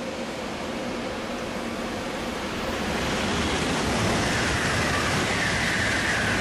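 Shinkansen train rushing past: a steady rush of noise that swells about three seconds in, with a faint high whine dipping slightly in pitch near the end.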